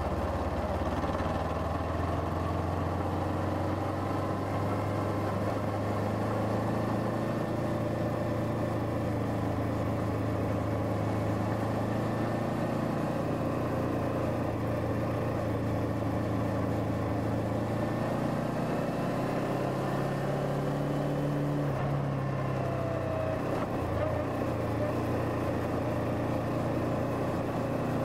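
Suzuki GW250 Inazuma's 248 cc parallel-twin engine running under way in town traffic, heard from the bike with road and wind noise. The engine note stays steady, then rises and falls with the throttle about two-thirds of the way in.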